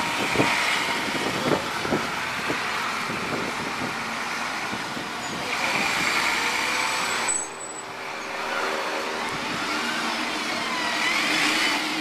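Diesel double-decker buses (Dennis Tridents) pulling in and running at the kerb, with a few knocks in the first couple of seconds. Air-brake hiss for about two seconds around the middle cuts off suddenly.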